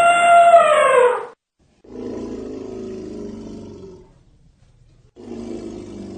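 An elephant's trumpeting call falls in pitch and ends about a second in. Two lower, quieter calls of about two seconds each follow.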